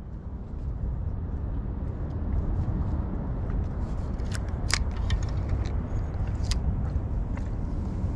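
Steady low rumble of wind and water on the microphone, with a few sharp clicks in the second half from handling the spinning reel and lure.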